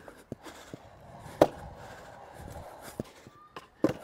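Stunt scooter on concrete: a few sharp knocks of the wheels and deck striking the ledge and ground, the loudest about a second and a half in, then wheels rolling, and a quick double knock near the end.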